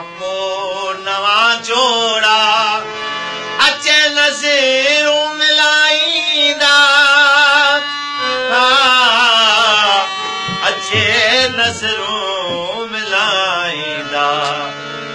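Male voice singing long, wavering, ornamented phrases over a steadily sounding harmonium.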